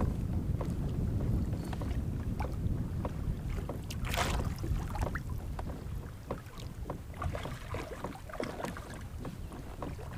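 Wind buffeting the microphone and choppy water lapping against the kayak, with scattered small clicks and taps, while a trout is reeled in. A brief rushing noise about four seconds in; the wind rumble eases after about six seconds.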